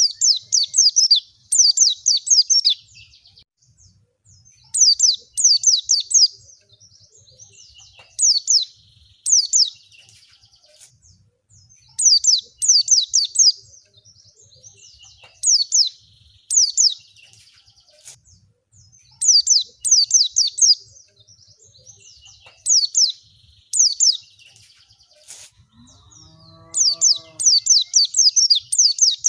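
White-eye (pleci) song used as a lure: bursts of rapid, high, downward-sweeping chirped notes, each lasting a second or two and repeated about every three to four seconds.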